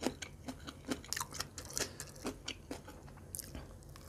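Faint, scattered small clicks and soft wet sounds of eating: fingers picking food out of a papaya salad (som tam) and lifting it to the mouth, with light mouth sounds.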